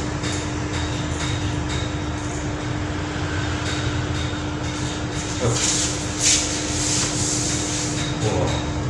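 Steady droning room noise with a constant low hum, and a brief hiss about six seconds in.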